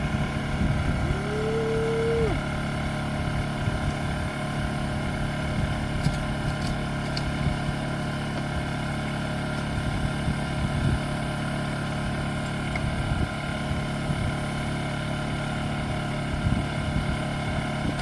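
Portable generator engine running steadily. About a second in, a short tone rises and holds for about a second.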